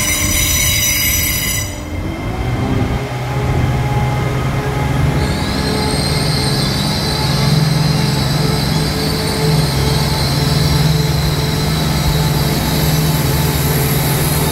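Northern Class 170 Turbostar diesel multiple unit 170460 pulling away, its underfloor diesel engines opening up about two seconds in to a steady howl. A high whine joins in about five seconds in, and a shrill high tone sounds for the first two seconds.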